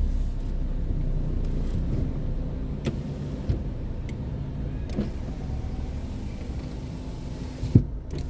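Car engine idling, heard from inside the cabin, with an electric window motor running as the glass closes at the start. A few light clicks and a short thump near the end.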